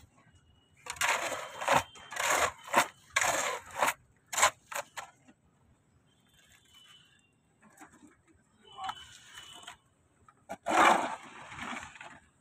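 Steel hoe scraping through wet, freshly mixed concrete on the floor and into a steel pan, in rough scraping strokes separated by pauses, with a sharp knock about four and a half seconds in.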